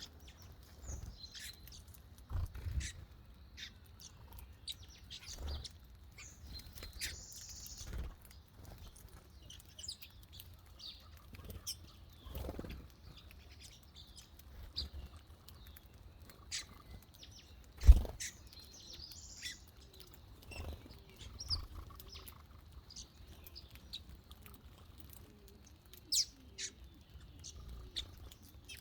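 Small birds chirping in short, scattered calls, with occasional sharp taps or knocks among them; the loudest knock comes about 18 seconds in.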